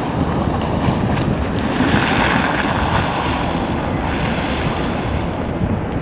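Blizzard wind buffeting the microphone: a steady low rush of noise, with a swell of higher hiss about two seconds in.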